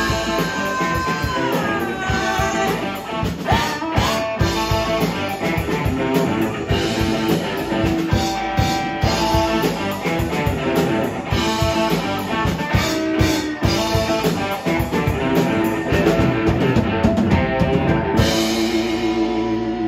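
Live rock band playing an instrumental passage: electric guitars with bent notes over a drum kit. Near the end the drumming stops and a chord rings on.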